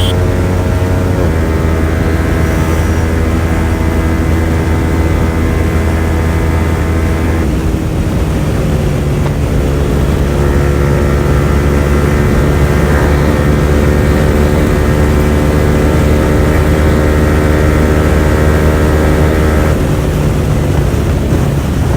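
Yamaha R15 V4's single-cylinder engine through an open aftermarket exhaust, running at high revs under full throttle, its pitch nearly steady and creeping up only slowly. It changes about seven seconds in and again near the end. The bike is near its top speed, straining to gain speed past about 138 km/h.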